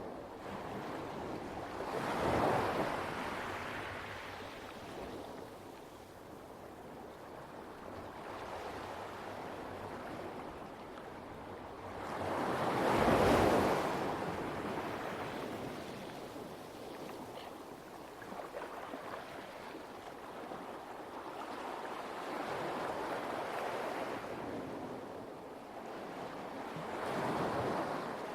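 Light waves washing onto a pebble beach, a steady wash rising into a louder break about two seconds in, a bigger one near the middle and another near the end.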